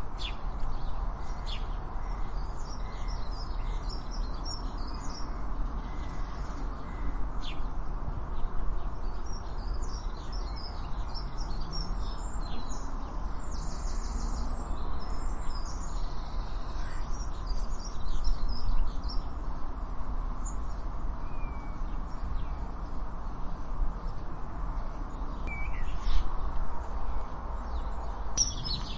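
Garden birdsong: several small birds chirping and twittering in short high phrases over a steady background of outdoor noise, with a few louder calls standing out now and then.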